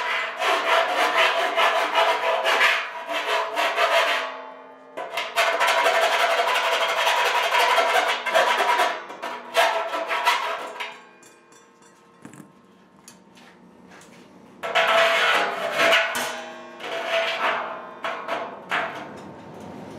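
Hand deburring tool scraping the edge of a freshly drilled hole in a stainless steel brew kettle: rapid rasping strokes with a steady ringing note under them, in three spells with a pause of a few seconds after the middle.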